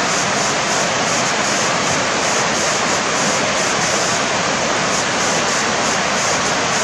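Steady rushing of flowing water, an even hiss that does not change.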